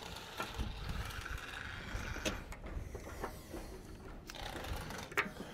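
Wind rumbling on the microphone, with a few short sharp clicks as test leads and tools are handled.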